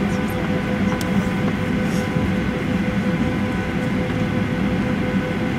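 Steady cabin noise inside a Boeing 737-800: a low rumble and rushing air, with a constant whine made of several steady tones.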